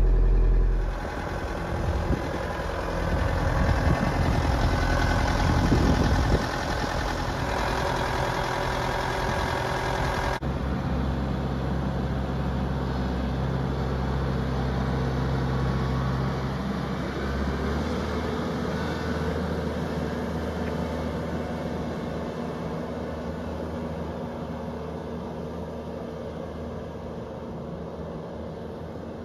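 Bobcat 5600 Toolcat's diesel engine running as the machine drives away, growing steadily fainter over the second half.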